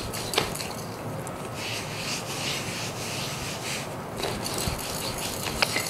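Rolling pin rolling out a ball of paratha dough on a floured silicone mat, with a back-and-forth rubbing swish at each stroke. A light knock comes about half a second in, and a few more come near the end.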